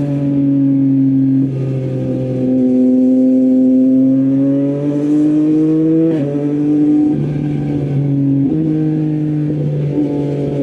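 Yamaha MT-09's inline three-cylinder engine running through an Akrapovic full-system exhaust while riding. The revs climb slowly, drop sharply about six seconds in as the bike shifts up, then step up and down a couple more times with the throttle.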